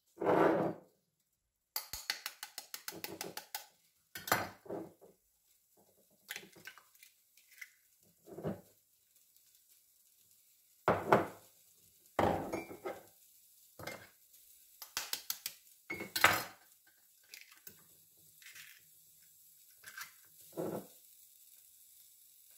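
Kitchen handling sounds: eggs cracked on the rim of a plastic mixing bowl and plastic cups and containers set down on a stone countertop, heard as scattered clicks and knocks. A quick rattle of small clicks comes about two seconds in, and the loudest knocks come around the middle.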